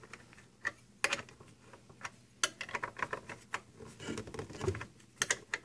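Irregular light clicks and small taps from hands working the bar-mounting nuts on a Greenworks 80V cordless chainsaw's plastic side cover, after the chain has been tensioned.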